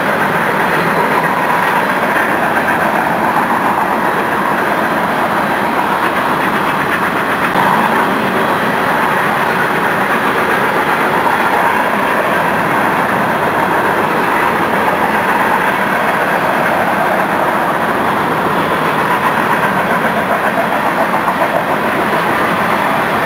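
Union Pacific coal train's loaded hopper cars rolling past, a steady noise of steel wheels on the rails.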